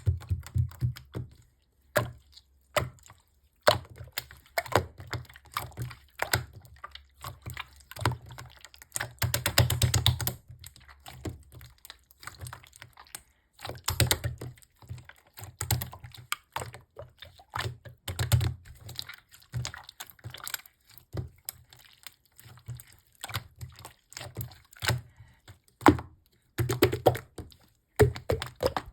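Purple slime being worked by hand, making irregular sharp clicks and pops, with a dense run of rapid crackling about ten seconds in.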